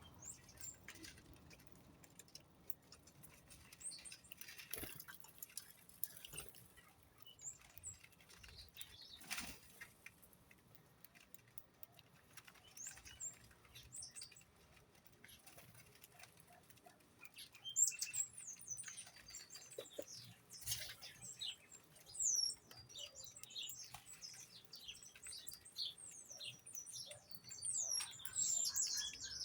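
Small birds chirping in many short, high-pitched calls, busier in the second half, among scattered light clicks.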